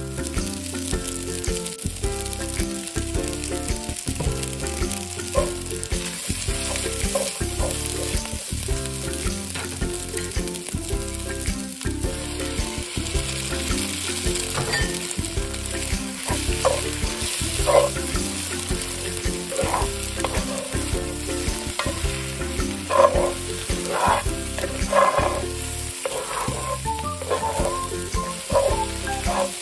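Fried rice with diced luncheon meat sizzling in an oiled pan while a spatula stirs and scrapes through it; from a little past the middle the spatula strokes come sharper and more often.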